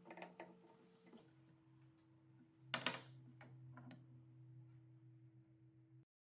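Faint light clicks and one brief, louder knock-and-scrape about three seconds in, over a steady low electrical hum; the sound cuts off abruptly near the end.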